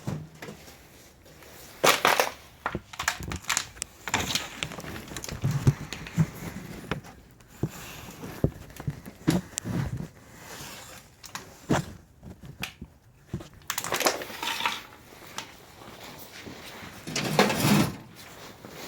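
Irregular crunching, rustling and knocking from the camera being handled and set in place, with several louder crunching bursts.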